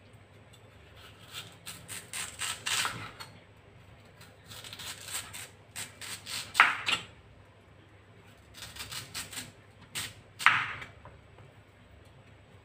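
Kitchen knife slicing through a raw peeled elephant yam on a wooden cutting board: three bouts of quick cutting strokes, with a sharp knock of the blade or slice on the board at the end of the second and third.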